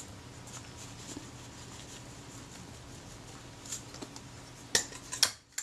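Small clicks and taps from handling a stripped-down Kodak Retina IIIS camera body, with a few sharper knocks near the end, over a faint steady hum.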